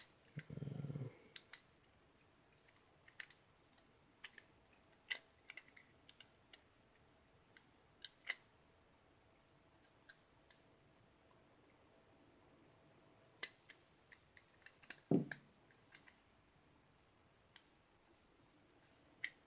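Scattered faint metallic clicks and taps of steel pistol parts being handled as a trigger bar is worked out of a Norinco NP34 frame, where it catches on an edge. A short low thud or muffled sound comes about half a second in, and another about fifteen seconds in.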